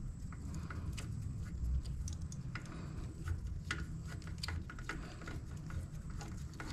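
Scattered, irregular light clicks and taps of metal as the bolts of a Keeway V250's clutch slave cylinder are fitted and threaded in, over a steady low background rumble.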